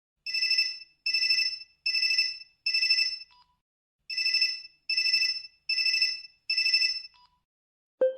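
Electronic phone ringtone: two sets of four short, even rings with a short pause between the sets.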